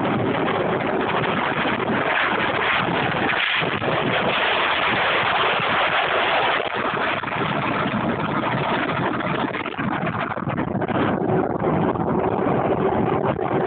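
Wind rushing over the microphone of a rider descending a mountain road at speed, mixed with steady rolling road noise. A steady hum joins in near the end.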